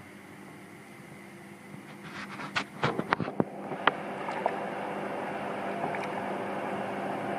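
Steady mechanical hum, with a quick run of sharp clicks and knocks about two to four seconds in, followed by a louder steady rushing noise.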